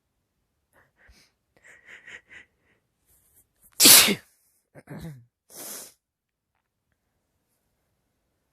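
One loud, wet sneeze about four seconds in. A few short, quick catching breaths come before it, and two shorter noisy bursts follow it.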